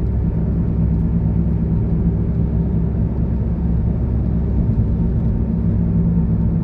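Loud, steady drone from a bad wheel bearing on a Honda car, heard from inside the cabin at road speed, with a constant low hum over the tyre and road noise. The drone is the sign of a faulty wheel bearing, even though the bearing was changed only days ago.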